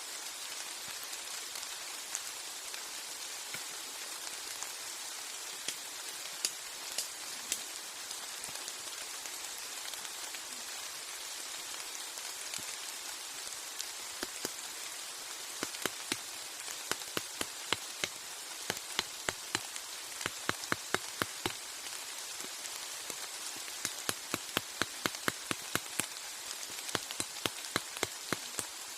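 Heavy rain falling steadily, an even hiss of rain with sharp ticks of heavier drops, scattered at first and coming several a second in the second half.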